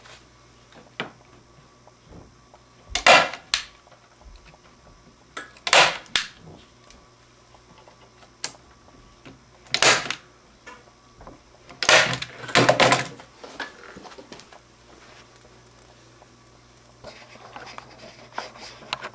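Hand staple gun fired several times, driving staples through wooden gussets into the rib pieces on the jig: about five sharp snaps a few seconds apart, two of them close together about two-thirds of the way in, with a few fainter clicks between.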